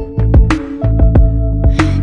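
Background music with a beat: regular drum hits over sustained bass and held notes.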